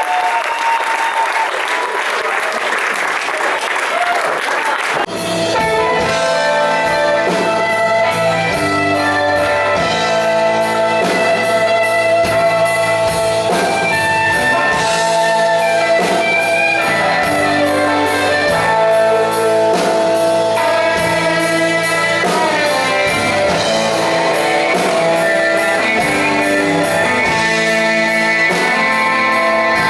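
Audience applauding and cheering for about five seconds, then a rock band launches into a song with electric guitars, bass and drums playing loud and steady.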